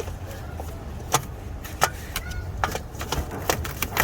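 Sharp metal clinks and knocks, about ten at irregular spacing, as a car starter motor is worked loose and out of a cramped engine bay, over a steady low hum.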